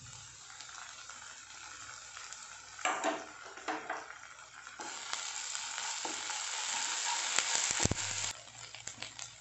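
Chopped onions and ginger-garlic paste sizzling in hot oil in a kadai. About five seconds in a spatula starts stirring them and the sizzle grows much louder, then it cuts off suddenly near the end.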